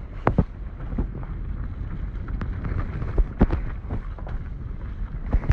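Car driving slowly over a potholed, broken asphalt road: a steady low rumble with wind on the microphone, broken by several sharp knocks as the wheels drop into potholes and hit loose stones.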